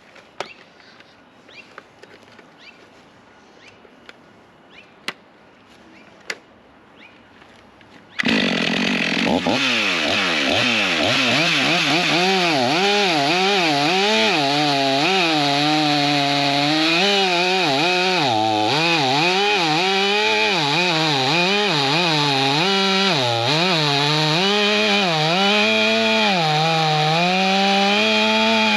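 A few faint clicks over quiet. Then, about eight seconds in, a Stihl MS500i fuel-injected two-stroke chainsaw comes in suddenly and runs loudly to the end, its engine pitch rising and falling over and over as it cuts through hardwood rounds.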